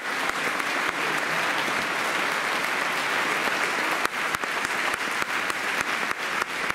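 Concert hall audience applauding: steady, dense clapping from many hands.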